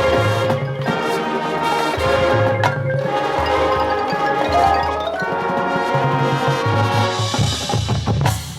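High school marching band playing a sustained passage: held brass-like chords over a moving low bass line, with mallet percussion ringing on top.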